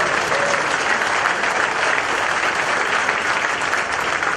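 Steady applause from a group of people clapping.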